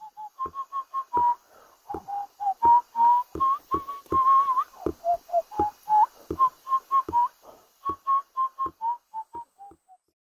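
A person whistling a tune in short notes, some sliding upward, over a beat of regular low thumps. The tune stops about ten seconds in.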